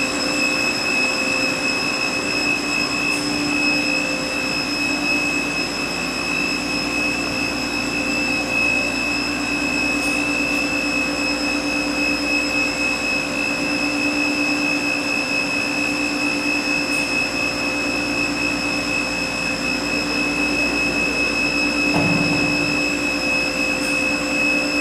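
Rüsch RDU320/600 sawing and drilling line running: a steady machine hum with several constant high whining tones, and a single low knock about 22 seconds in.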